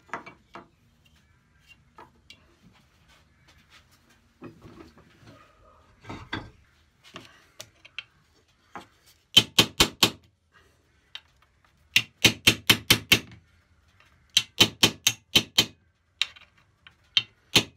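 Hammer tapping a punch to drive the bent brass saw nuts out of an old dovetail saw's handle. The first half holds only faint handling clicks. About nine seconds in, runs of five to eight quick sharp taps begin, about seven a second, and repeat every couple of seconds. The nuts are bent, which the owner takes to be why they are hard to get out.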